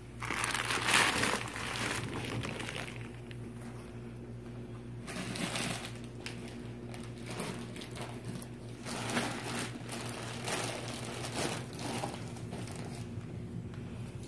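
Clear plastic wrap on a compressed foam mattress crinkling and rustling in irregular bursts as hands pull and handle it, loudest about a second in.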